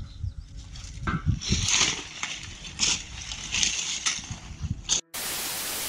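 Leaves and branches of a hedge rustling in several irregular bursts as a person in a ghillie suit pushes through the foliage. Near the end the sound cuts off abruptly and gives way to a steady hiss.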